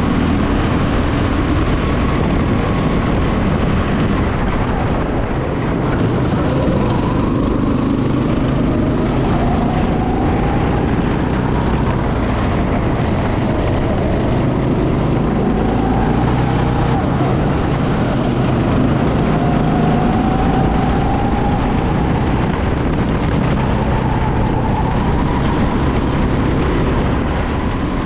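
Go-kart engine heard onboard, running hard, its pitch rising and falling again and again as the driver accelerates out of corners and lifts off into them.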